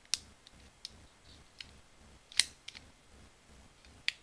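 Small plastic gashapon toy pistol model's moving parts clicking as they are worked by hand: sharp, separate plastic clicks, three loud ones near the start, about halfway and near the end, with fainter clicks between.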